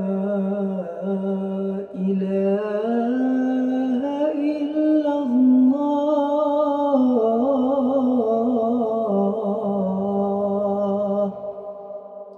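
A man singing the adhan, the Islamic call to prayer, solo into a microphone. It is one long ornamented phrase of held, wavering notes that climbs in pitch about two seconds in and sinks back later. The voice stops about eleven seconds in and dies away.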